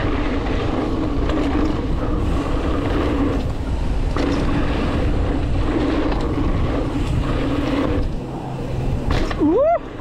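Wind rushing over a handlebar-mounted camera microphone while a mountain bike's knobby tyres roll fast on hard-packed dirt, a steady rumbling hiss. Near the end come a couple of short swooping calls.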